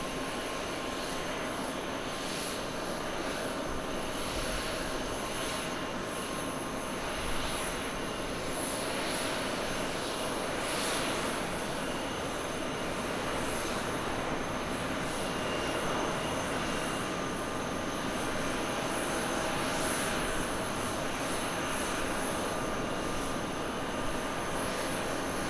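Jet airliner engine noise from a Boeing 737-800's CFM56-7B turbofans as it lands and rolls out along the runway: a steady rushing noise with faint steady high whine tones.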